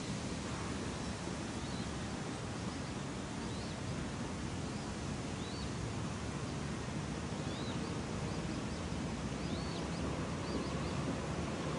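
Steady outdoor night ambience: a constant low noise with a scattering of short, high chirps, which come more often in the second half.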